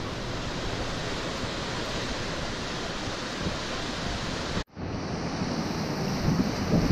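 Ocean surf breaking on a beach, heard from above as a steady wash of noise mixed with wind on the microphone. It cuts out for an instant about four and a half seconds in, then resumes.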